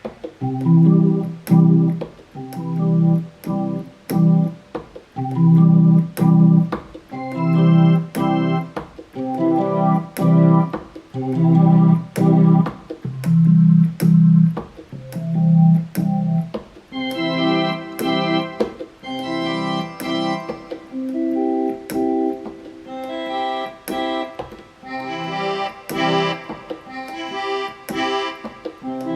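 Yamaha PSR-350 home keyboard sounding a C over and over, once for each preset voice as the voices are stepped through, so the tone changes from note to note. The notes come about one every second or so and grow brighter and fuller in the second half.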